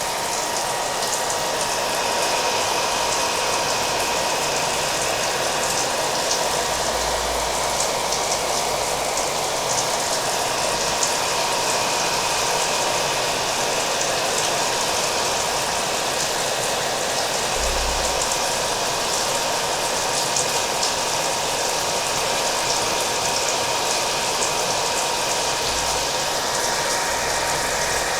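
Hair dryer running steadily with a faint high whine, mixed with the even hiss of steady rain.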